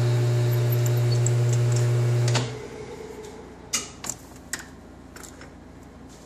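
Lathe running with a steady motor hum during a chamber-reaming pass in a .308 barrel, switched off and stopping abruptly about two seconds in. A few light metallic clicks follow as the reamer is handled.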